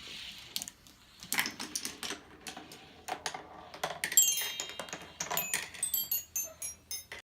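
Toy marbles clicking and knocking as they roll and collide along a homemade chain-reaction ramp track. About four seconds in, a marble runs down a toy xylophone, striking a quick series of high ringing notes among the clicks.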